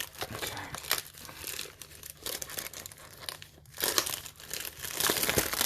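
Plastic shrink wrap being torn and crinkled off a cardboard booster box, in irregular crackles that grow louder about four seconds in and again near the end.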